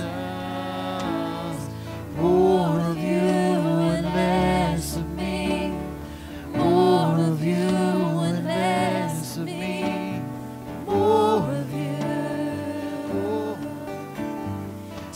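Slow worship song played by a band of acoustic guitars and keyboard, with a singer's voice coming in over the sustained chords in several phrases.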